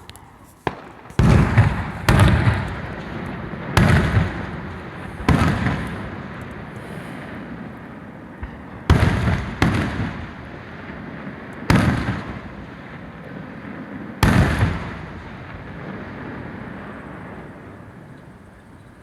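Aerial fireworks shells bursting overhead: about eight loud booms, each followed by a long rolling echo, coming a second or a few seconds apart through the first fifteen seconds. The echoes then die away.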